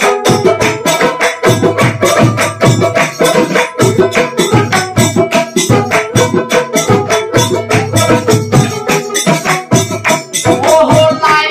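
Instrumental passage of Bengali Baul folk music: a plucked long-necked lute (dotara) and a frame drum with jingles (khanjani) keep a quick, even beat of about five strokes a second. A voice begins singing near the end.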